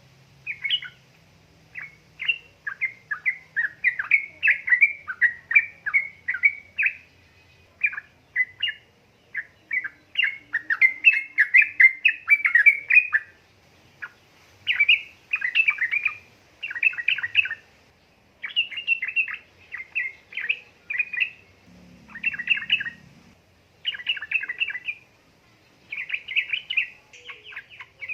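Yellow-vented bulbul (trucukan) singing energetically: bouts of rapid, chattering chirps, each run lasting a second or a few seconds, with short pauses between them.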